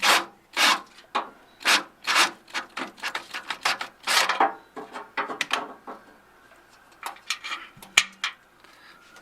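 Rasping strokes of a tool worked by hand back and forth through the edge of a hole in sheet-metal body panel, cleaning it up: about two strokes a second at first, then quicker and shorter, stopping about six seconds in. A few sharp clicks and a knock follow near the end.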